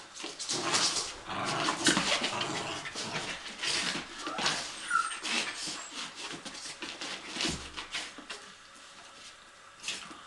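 Border terriers playing, a dense run of irregular noisy bursts and dog vocal sounds, with another dog making sounds in the background.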